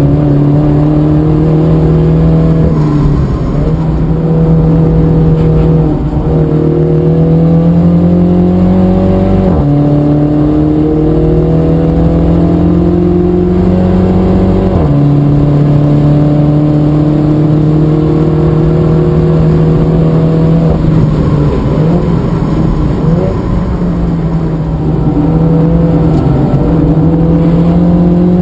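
Inside the cabin of a MINI F56 John Cooper Works, its turbocharged 2.0-litre four-cylinder engine is heard accelerating hard. The pitch climbs steadily through each gear and drops sharply at each of several gear changes.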